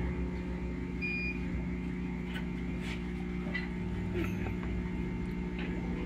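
Laser cutter switched on and standing idle, humming steadily. A short faint beep sounds about a second in, with a few faint clicks after it.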